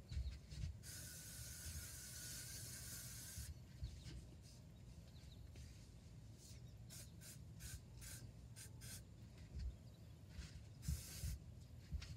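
Aerosol sunscreen spray hissing in one long burst of about two and a half seconds, then a run of short spurts and one more burst near the end, with hands rubbing it onto skin.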